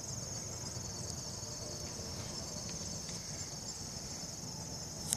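Insects trilling steadily with a high, continuous chirring, over faint background noise.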